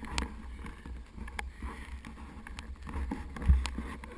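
Footsteps crunching in crusted snow, a few irregular steps, over a steady low rumble of wind buffeting a body-mounted camera. A louder low thump comes about three and a half seconds in.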